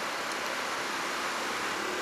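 Steady road noise of motor vehicles: an even rush with no single event standing out.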